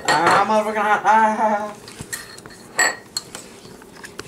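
A metal spoon stirring SpaghettiOs and clinking sharply against a bowl a few times about two to three seconds in. Before that, a drawn-out wordless vocal sound with wavering pitch, the loudest thing here.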